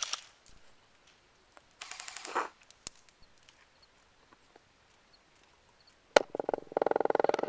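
Airsoft guns firing on full auto: a short burst of rapid clicks about two seconds in, a sharp single crack just after six seconds, and a longer burst of rapid fire near the end.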